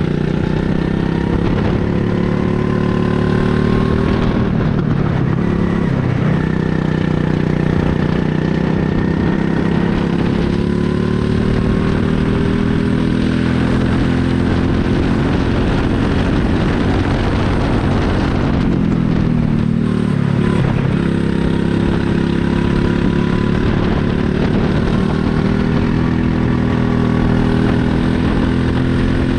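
Rental go-kart engine heard from the driver's seat at speed, its pitch climbing along the straights and falling away as the kart slows for corners, about five seconds in and again near twenty seconds.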